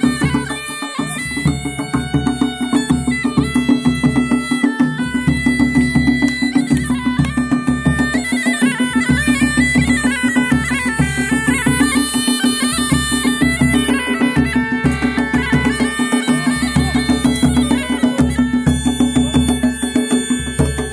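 Mashakbeen (Kumaoni bagpipe) playing a folk melody over its steady drone, with a drum beating a steady rhythm underneath.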